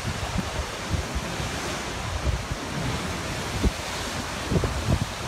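Ocean surf breaking against volcanic lava cliffs and surging into a sea cave: a steady rush of churning water. Wind buffets the microphone a few times in the second half.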